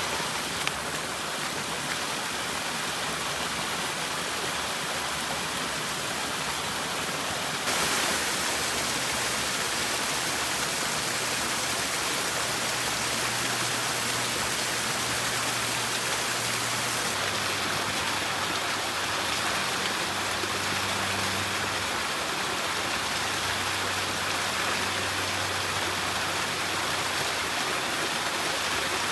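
Spring water gushing from a pipe and splashing down over rocks: a steady rush of falling water that gets louder about eight seconds in.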